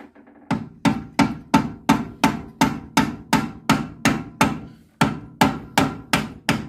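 Rubber mallet striking over and over, about three blows a second, with a short pause a little past halfway, knocking a stuck part free on a car's brake assembly during a pad change.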